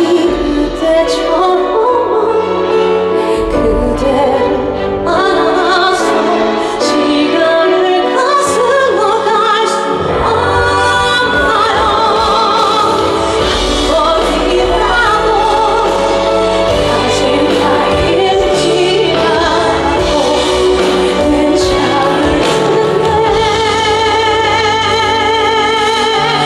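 Live amplified concert music: a female vocalist singing held notes with vibrato over a full backing of bass and percussion.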